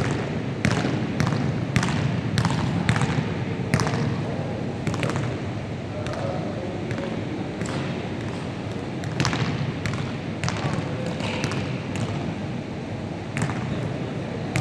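Basketball bouncing on a wooden gym floor during one-on-one play: a run of dribbles about two a second in the first four seconds, then scattered bounces and thuds.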